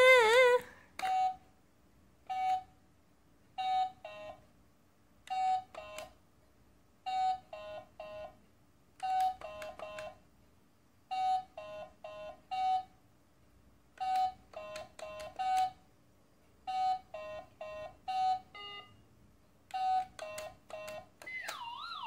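Handheld electronic memory game (a Simon-style toy) beeping as its coloured buttons light: short electronic tones, each button with its own pitch, in runs of one to four beeps separated by pauses. Just before the end a wavering, siren-like electronic sound starts.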